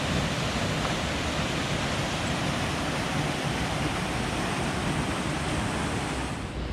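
The Sinks waterfall on the Little River, its water rushing steadily. The falls are running much lower than normal because of a drought.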